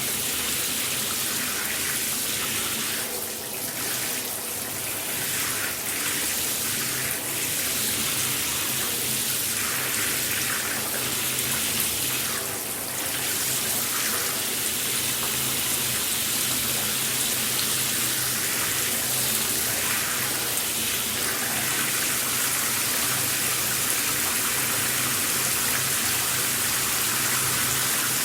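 Shower spray running steadily, water hissing down onto a hard surface, with small swells in the splash now and then.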